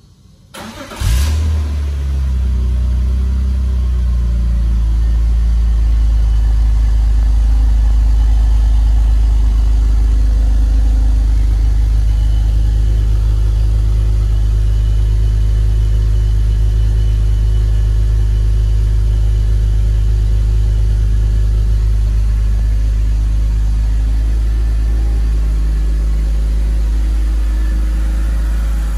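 2001 BMW 330Ci's 3.0-litre straight-six cold-starting: a brief crank, catching about a second in, then running at a steady idle. It is heard first at the twin tailpipes and then beside the open engine bay near the end.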